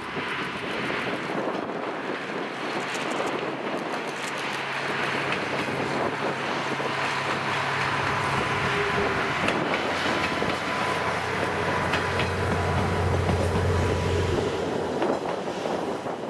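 JR East Tohoku Emotion diesel train, a KiHa 110-series based railcar set, running: a steady rushing noise over a low engine hum that grows gradually louder.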